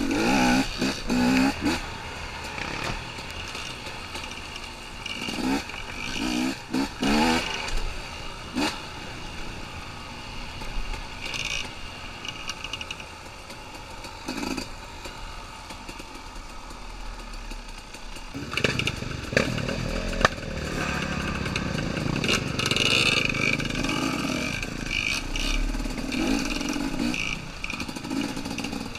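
Two-stroke dirt bike engine under way on a rough trail, revving up and down in short throttle blips over the first several seconds, quieter in the middle, then pulling harder and steadier from about two-thirds of the way in, with clatter from the bike over the ground.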